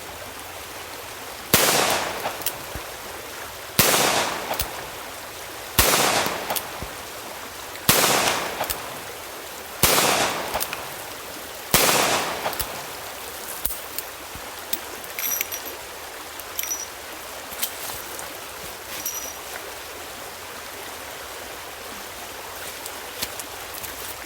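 .45 Long Colt revolver firing low-velocity cowboy loads: six shots about two seconds apart, each followed by a short echo. A few faint clicks follow the last shot.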